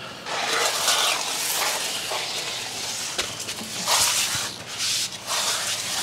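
Steady rustling and scraping, with a few louder swells, as a large, heavy potted plant is shifted and pushed into place among other plants.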